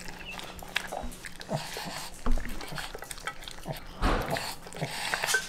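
Italian greyhound eating wet dog food fast from a stainless steel bowl: irregular wet chewing and licking smacks, with two louder sudden noises about two and four seconds in.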